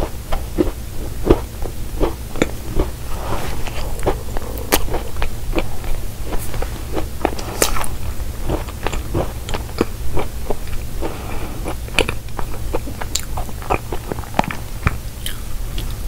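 Close-miked chewing of a crumbly cookie pie, with many short, sharp crunches and clicks at an uneven pace.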